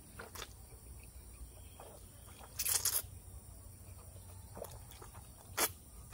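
A person slurping long strands of rice vermicelli noodles into the mouth, with one loud slurp lasting about half a second near the middle and a sharp wet smack near the end, between quieter mouth noises.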